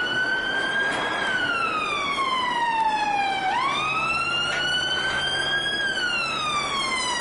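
Toy police car's electronic siren wailing: one clean tone sweeping slowly up and down. About three and a half seconds in it snaps quickly back up from its lowest point, then falls again.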